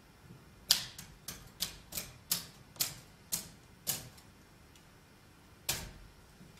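A quick, irregular run of sharp clicks, nine in about three seconds, then one more click near the end.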